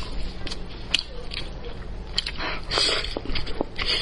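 Close-miked eating sounds: a person biting and chewing soft, sauce-coated braised pork elbow, with scattered sharp mouth clicks that thicken into denser chewing noise about two and a half seconds in.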